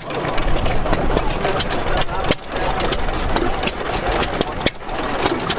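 Antique gas engines running together, with many sharp, unevenly spaced pops and clicks over a steady engine noise.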